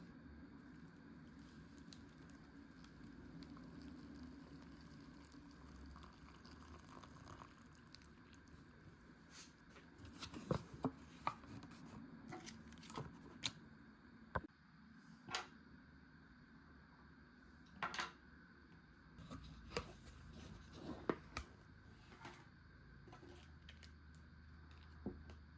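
Faint room tone, then from about ten seconds in a dozen or so scattered sharp clicks, taps and crinkles of food packaging being handled and opened.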